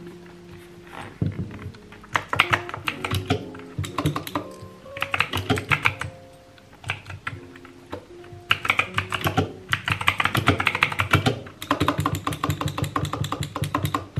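Fast typing on a backlit mechanical computer keyboard: quick runs of key clicks in several bursts, with short pauses between them. Soft background music plays underneath.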